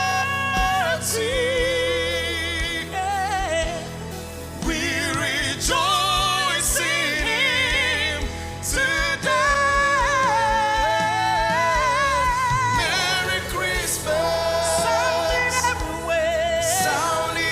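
Gospel singing: long held vocal notes with strong vibrato over a steady band accompaniment.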